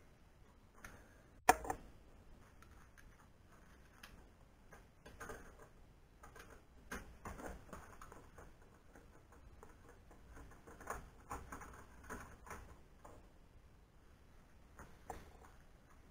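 Small clicks, taps and handling noises of hand tools and hardware on an aluminium extrusion CNC frame, including a screwdriver turning a screw at a corner plate. One sharp click about a second and a half in is the loudest, and the rest are scattered light taps and rustles.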